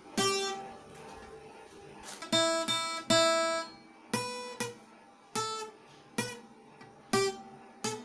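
Acoustic guitar plucked slowly and unevenly, about ten single notes and chords, each ringing out and fading, with pauses between: a learner picking out notes.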